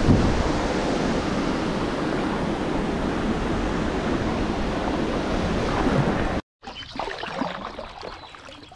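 Steady rushing of water spilling through a small hydroelectric dam. Near the end it cuts off suddenly and gives way to quieter water splashing.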